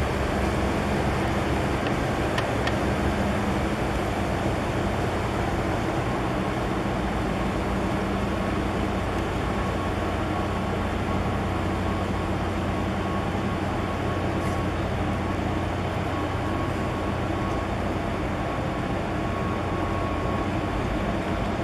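Steady low mechanical drone of a large container ship under way, its machinery humming under a wash of water and air noise. A faint thin whine joins about a third of the way in.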